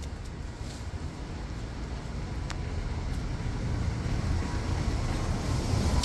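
Low outdoor background rumble that grows steadily louder, with a single faint click about two and a half seconds in.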